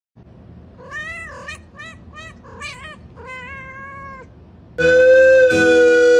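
A domestic cat meowing: about five calls, a few short ones, with a longer, drawn-out one near the end. Just before the end loud, steady music comes in.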